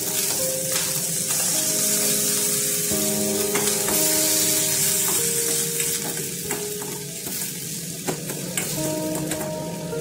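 Chopped onions sizzling in hot oil in a steel kadai, with the metal spatula clicking and scraping against the pan as they are stirred. Soft instrumental music plays underneath.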